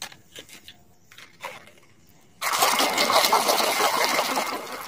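A few light clicks of plastic toys being handled, then about two and a half seconds in, a hand starts sloshing and scrubbing in a tub of foamy soap water.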